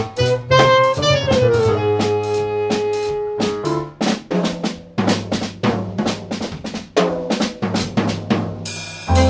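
Small jazz band playing live: a saxophone plays a melody of held notes over a busy drum kit, with a walking upright bass and piano.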